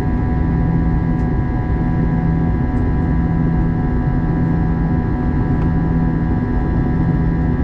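Steady in-cabin drone of an Airbus A321-211's CFM56 turbofan in climb, heard near the wing: a low rushing noise with several constant humming tones held through.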